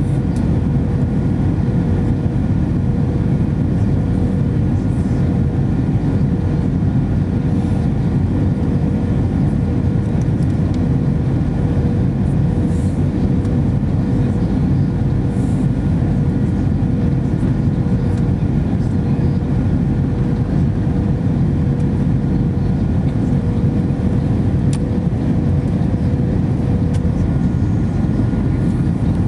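Steady cabin noise inside an Airbus A319-114 descending on approach: the deep, even rush of airflow and the CFM56 engines, with a thin steady hum that fades out near the end.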